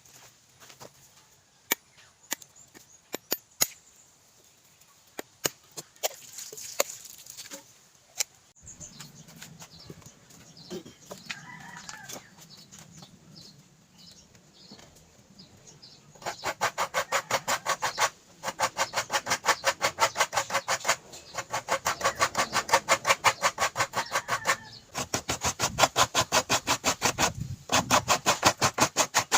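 Scattered clicks and knocks, then about halfway in dense runs of quick, even strokes several times a second, broken by short pauses. A chicken clucks briefly.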